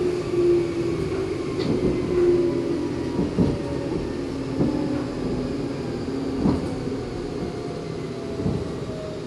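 Meitetsu 6000 series resistor-controlled electric train heard from on board: the running rumble with a motor and gear whine falling slowly in pitch as the train slows, and a few rail-joint clacks.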